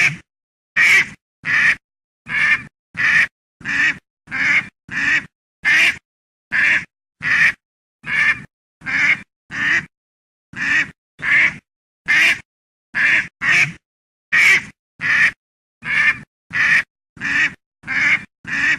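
A duck quacking over and over: short single quacks, roughly one every 0.7 seconds, each separated by dead silence.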